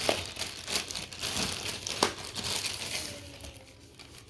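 Packaging crinkling and rustling as it is handled, with a couple of sharper clicks near the start and about two seconds in.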